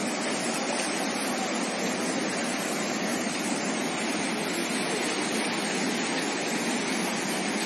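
A river in flood, its fast, turbulent muddy water rushing with a steady, even noise.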